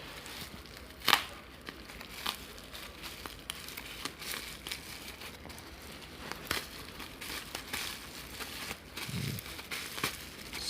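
A mailed package being opened by hand: packaging crinkling and rustling with scattered clicks, and one sharper snap about a second in.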